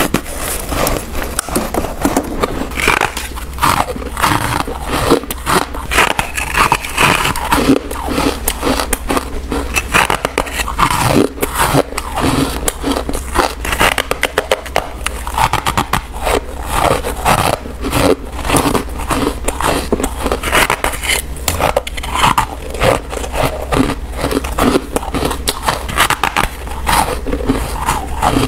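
Close-miked biting and chewing of chunks of freezer frost: a dense, steady run of crunchy, squeaky crunches.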